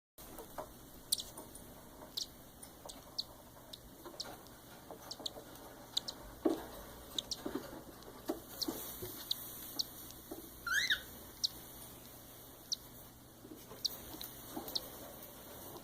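Week-old cockatiel chicks giving short, high-pitched peeps at irregular intervals, with one longer rising call about eleven seconds in. Soft low knocks now and then underneath.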